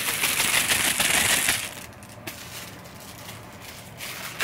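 Plastic mailer bag crinkling and rustling as it is handled, loud and dense for about the first two seconds, then quieter.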